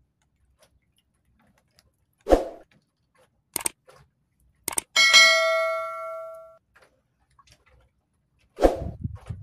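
Subscribe-button animation sound effect: two sharp clicks, then a bright bell ding that rings out for about a second and a half. A dull knock comes about two seconds in and another near the end.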